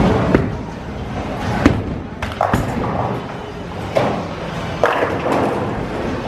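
Bowling alley din: a bowling ball thumps down onto the lane and rolls, then crashes into the pins about four to five seconds in, with several sharp knocks and the general clatter of the alley around it.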